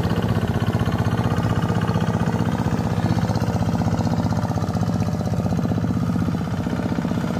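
Engine of a machine plowing a rice paddy, running steadily with a fast, even beat. It is loud and noisy.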